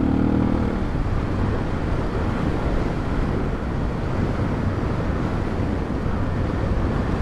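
Suzuki DR650's single-cylinder four-stroke engine running steadily while riding, mixed with a constant rush of wind and road noise. A clear engine tone is heard in the first second before it sinks into the steady rumble.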